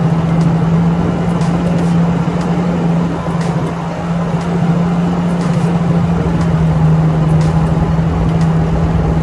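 An engine running at a steady speed with a constant low hum, over a loud, steady rushing noise.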